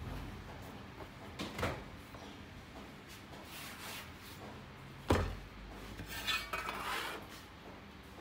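Hands working bun dough on a floured wooden board. There is a soft knock about a second and a half in and a louder thump about five seconds in, followed by a second or so of rubbing and scraping across the board.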